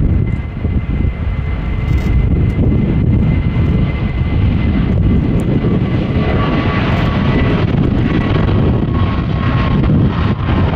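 Airbus A310 (RCAF CC-150 Polaris) jet engines running as the airliner rolls on the runway: a steady heavy rumble with a thin high whine over it. About six seconds in, the whine and the hiss above the rumble grow stronger as the engines spool up.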